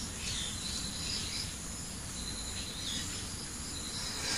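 Steady insect chirring, like crickets, with a few faint high chirps scattered through it and a short click near the end.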